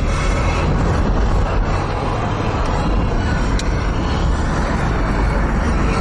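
Car driving along a road, its engine and tyre noise heard from inside the cabin as a steady, even din.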